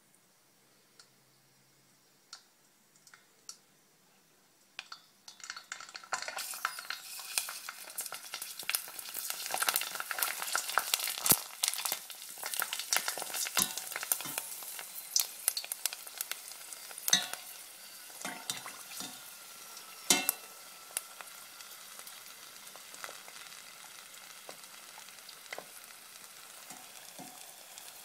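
Pork skin deep-frying in hot oil, puffing into pork rinds. There are a few faint clicks at first. About six seconds in, a loud crackling sizzle with sharp pops starts, and it eases to a steadier, quieter sizzle near the end.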